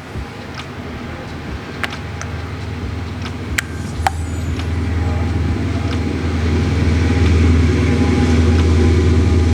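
A motor vehicle engine running, a steady low hum that grows louder over several seconds and then holds, with a few sharp clicks early on.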